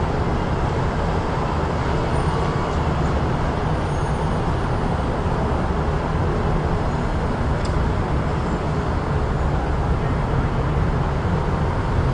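Steady road traffic of a busy city street: a continuous low rumble of passing vehicles.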